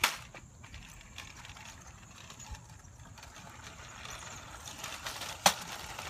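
Toy remote-control monster truck running, its small electric motor and plastic wheels giving a faint whir and rolling noise on asphalt. There is a sharp click at the start and a short sharp knock about five and a half seconds in.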